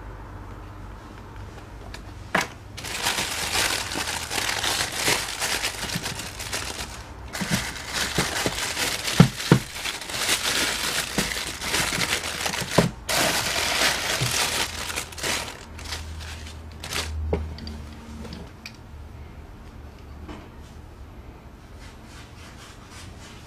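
Clear plastic wrapping crinkling as a plastic hand grip exerciser is pulled out of it, in bursts with short breaks, with a few sharp clicks in the middle. The crinkling dies away about two-thirds of the way through, leaving faint handling noise.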